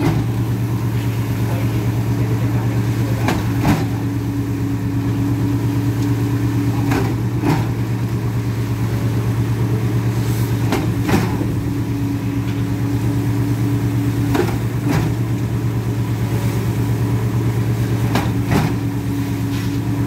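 Concrete pump truck running: its diesel engine hums steadily while the pump gives a pair of knocks about every three and a half seconds, typical of the pump changing stroke.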